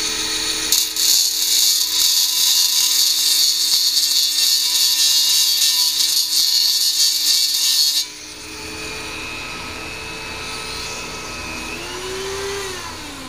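Dremel rotary tool with a small grinding stone, its motor whining steadily while it grinds down a rusted rivet head on stainless steel trim moulding. The loud grinding cuts off suddenly about two-thirds of the way through. The tool then runs free at a lower level, its whine rising briefly and then dropping near the end.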